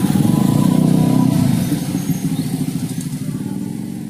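Many motor scooters and small motorcycles pulling away together across a railway level crossing, a loud mass of engine noise that gradually fades over the last two seconds.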